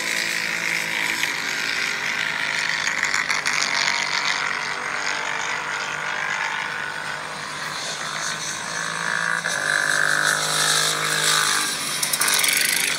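Royal Enfield Continental GT 650 parallel-twin race motorcycles running on a racetrack, heard through a phone's small speaker. The engine pitch rises and falls as bikes pass, most plainly from about eight to eleven seconds in.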